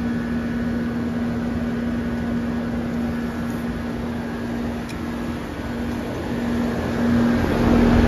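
Outdoor heat pump units running: a steady hum with one constant low tone, getting a little louder near the end.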